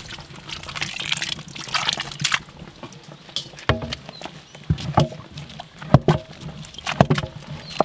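Melted cow's ghee being poured over the haleem in a trickling stream, followed by a series of short knocks and thuds about once a second.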